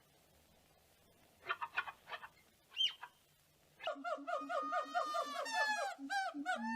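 Animal calls: after a quiet start, a few short clicks and a brief chirp, then from about four seconds in a fast run of pitched notes, several a second.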